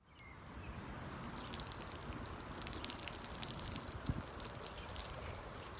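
Water trickling steadily from a small plastic watering can onto garden soil, with a thump about four seconds in.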